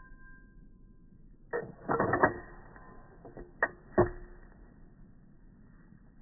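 Mechanical handling sounds: a quick cluster of clacks and clicks about one and a half to two seconds in, then two sharp single clicks around three and a half and four seconds.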